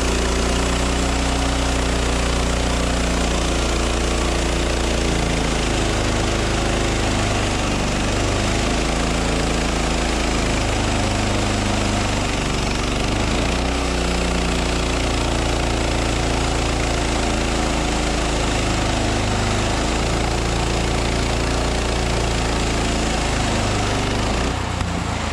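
Sawmill engine running steadily under load, its pitch shifting a little as it works; the sound drops near the end.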